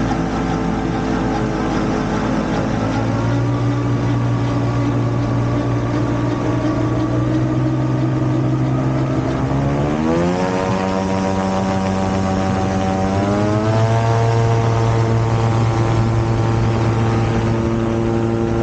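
Rotax engine of an open-frame gyrocopter running steadily, then revving up in two steps, about ten seconds in and again a few seconds later, its pitch rising as the throttle opens for the takeoff roll.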